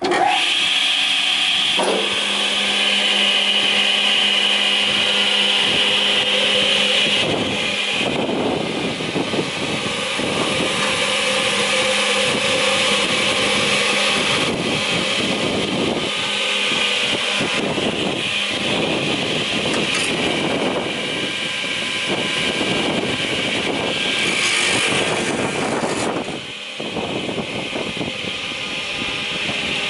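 Lower ZA 3000 tenoning machine starting up as it is switched on, then its motors and cutters running with no wood being cut: a steady machine hum and whine that comes in suddenly and shifts in tone several times.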